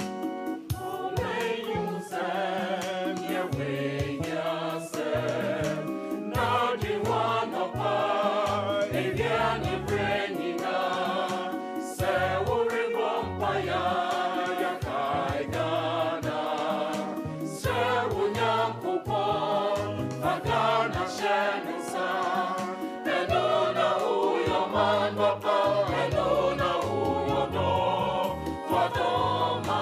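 Gospel-style song with a choir singing over keyboard and bass.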